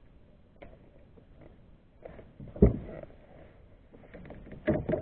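Handling knocks while a rockfish is unhooked on a kayak: one heavy thump about two and a half seconds in, then a quick run of knocks and clicks near the end.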